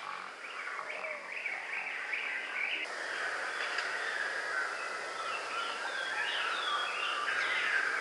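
A chorus of songbirds chirping and calling, with many short overlapping notes over a faint hiss. The background changes abruptly about three seconds in.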